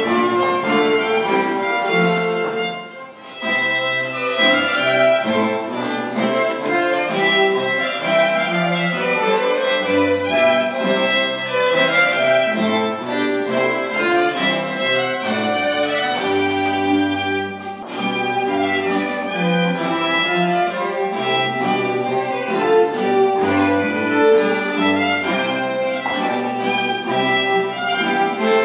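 Live baroque ensemble playing a dance tune: a violin carries the melody over a bowed bass line, with a short break in the music about three seconds in.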